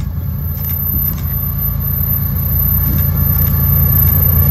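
Diesel locomotives of an approaching freight train: a low engine rumble that grows steadily louder as the train nears.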